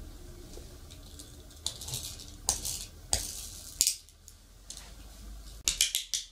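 Small hard clicks and light clatter as a plastic toy car is picked up and set back on its track by hand, with a quick run of clicks near the end.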